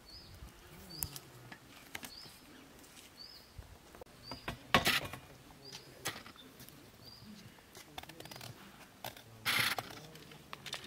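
A small bird repeating a short, high chirp about once a second, with two louder, brief bursts of noise about five seconds in and near the end.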